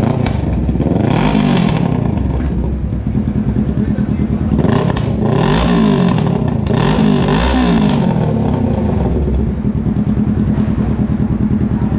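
Kawasaki Ninja 650's parallel-twin engine breathing through an aftermarket full exhaust, idling with three quick throttle blips about a second, five seconds and seven seconds in, each rising and falling back to idle.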